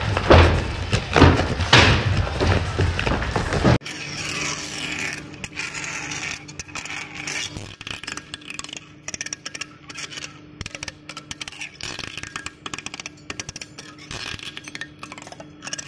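Rustling and knocking of a worker handling and folding a patterned sheet at a table. The sound then cuts off abruptly about four seconds in to a metal lathe turning a large steel workpiece: a quieter, steady scraping of the cutting tool on the metal over a low machine hum.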